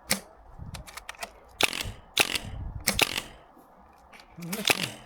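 Airsoft guns firing: about five sharp single shots at irregular intervals, with a few fainter clicks between the first two.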